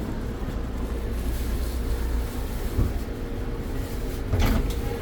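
Train running with a steady low rumble, and a sharp knock or clatter about four seconds in.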